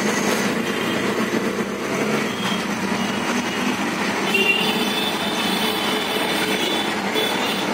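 Auto-rickshaw engine running steadily with road noise, heard from inside the open cab as it drives through traffic.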